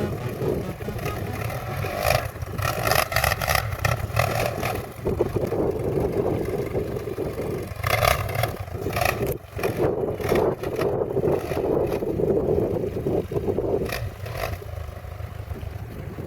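ATV engine running while riding a trail, with several rough bursts of noise, the loudest about two to four seconds and eight seconds in.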